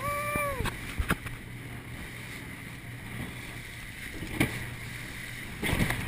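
A rigid inflatable boat runs fast through choppy sea, with a steady engine drone and rushing wind and water. The hull slams into waves about a second in, again about four seconds in, and hardest near the end, as spray bursts over the bow. Right at the start a brief voice cries out, rising and falling.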